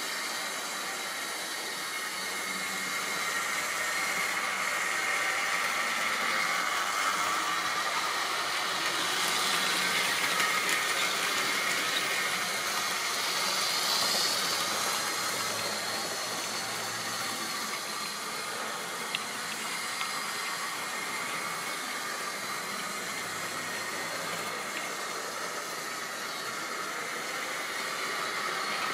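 Tri-ang or Lima OO-gauge model trains running on the track: the small electric motors whine steadily over a hiss of wheels on rail, the whine wandering up and down in pitch, with a couple of faint clicks about two-thirds of the way through.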